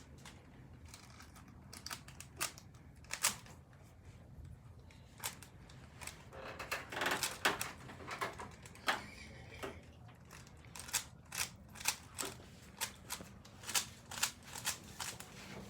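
Plastic Rubik's Cube layers being turned by hand, giving a string of sharp clicks and rattles. The clicks are scattered at first, then come quicker, about two a second, in the last few seconds.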